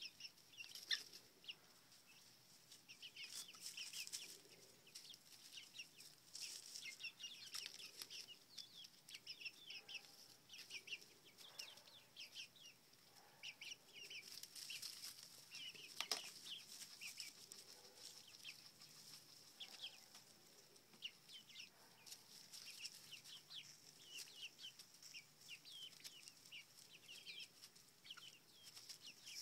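A small flock of seven-week-old chickens peeping in quick, short, high cheeps that fall in pitch, faint and almost continuous, as they eat treats.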